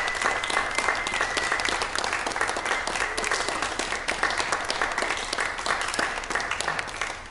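Small audience applauding with hand claps, easing off slightly near the end.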